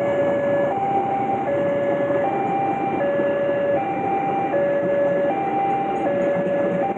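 Coaches of a passenger train rolling steadily past at a level crossing, with the crossing's electronic warning alarm sounding over it: two notes alternating, low then high, each held about three quarters of a second.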